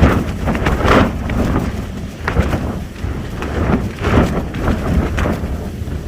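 Fjällräven tent's fabric flapping and snapping hard in strong gusts of wind, in irregular loud surges about every second, over a steady low rumble of wind on the microphone.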